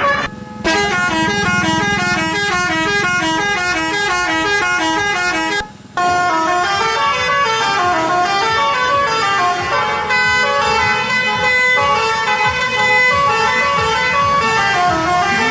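Odong-odong telolet musical horn playing quick runs of stepping notes that rise and fall like a tune. It breaks off briefly about six seconds in, then plays a second, slower melody.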